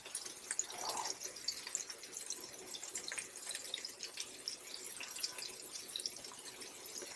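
Ground-beef burger patties frying on a flat griddle, sizzling in their own fat as a steady crackle of many small pops.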